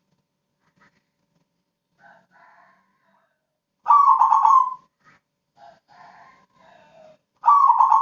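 Crossbred zebra dove (perkutut) cooing in short stuttering phrases: quieter coos about two seconds in and again past the middle, and two loud phrases of about a second each, one about four seconds in and one near the end.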